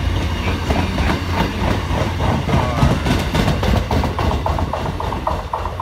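MBTA bi-level commuter rail coaches rolling past close by, a steady low rumble with their wheels clicking and clattering over the track.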